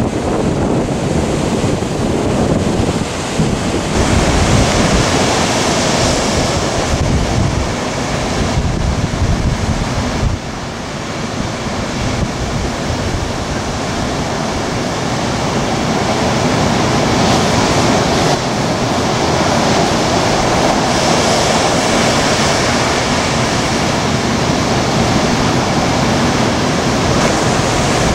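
Big hurricane-driven ocean surf breaking and washing, with wind buffeting the microphone.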